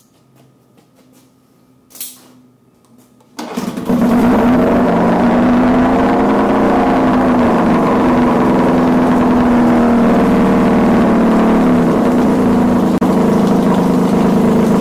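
1965 Evinrude Fisherman 6 hp two-stroke outboard motor starting: after a short burst about two seconds in, it catches suddenly about three and a half seconds in and then runs loud and steady.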